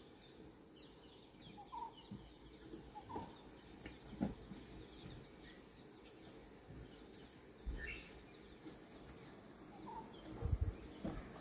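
Faint outdoor ambience with scattered short bird chirps, and a low rumble rising near the end.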